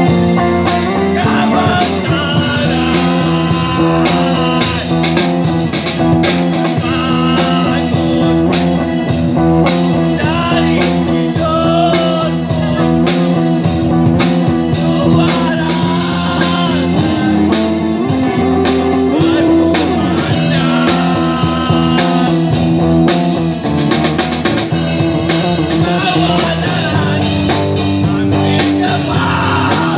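Live band music: a man singing into a microphone over an amplified electronic keyboard and an acoustic drum kit keeping a steady beat.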